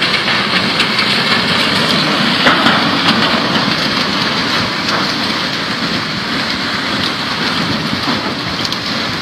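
Flash-flood debris flow of mud, rocks and branches rushing down a riverbed: a loud, steady rumbling rush with a few faint knocks in it.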